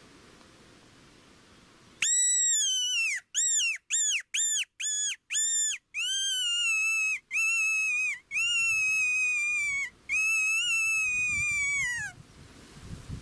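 Cheap fox whistle, a mouth-blown predator call of two plastic pieces with an aluminium reed, blown to sound like a rabbit in distress. It gives a squeal about two seconds in, then a quick run of short squeaks, then four longer squeals of a second or more, each sagging in pitch at its end. The calling stops near the end.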